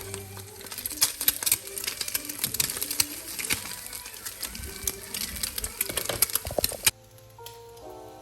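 Food frying in a pan, hot oil crackling and spitting in dense, irregular pops. It cuts off suddenly near the end, leaving background music.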